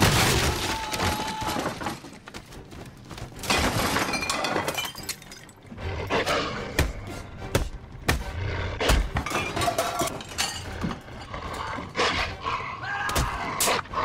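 Glass shattering and breaking in a loud crash at the start, followed by a string of thuds and crashes from a violent struggle, over dramatic film score music.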